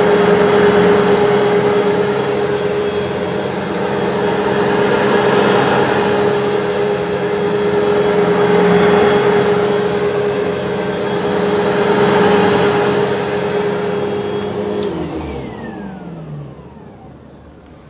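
Sebo Automatic upright vacuum cleaner running on carpet: a steady motor whine with suction noise that swells and ebbs as it is pushed back and forth. About 15 seconds in it is switched off and the motor winds down with a falling whine.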